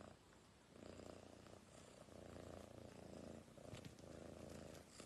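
Domestic cat purring softly: a low, faint rumble that swells and dips with each breath.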